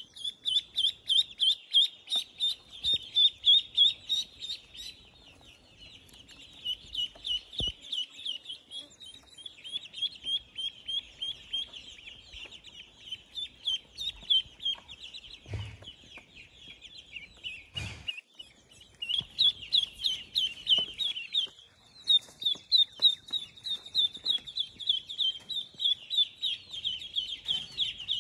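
Young chicken chick peeping: rapid runs of short high peeps, several a second, broken by a few short pauses.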